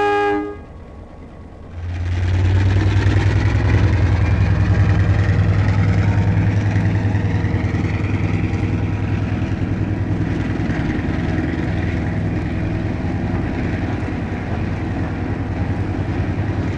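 Diesel-hauled passenger train pulling away: a horn blast ends right at the start, then about two seconds in the locomotive's diesel engine comes up under power with a deep, pulsing engine note and a faint rising whine, easing off slightly near the end.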